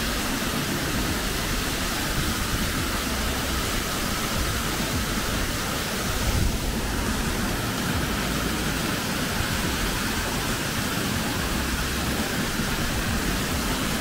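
Fast, muddy mountain stream rushing over rocks and around logs: a steady, unbroken rush of water.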